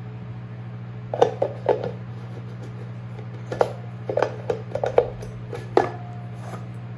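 Light clicks and knocks of ceiling fan parts being handled and fitted into place. They come in small clusters, about a second in and again from about three and a half to six seconds in, over a steady low hum.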